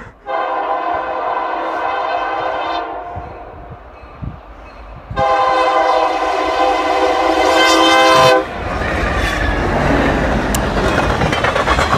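Diesel freight locomotive's air horn sounding two long blasts, the second louder, as the train approaches. The horn cuts off and the locomotive passes close by with a loud rumble of engine and wheels.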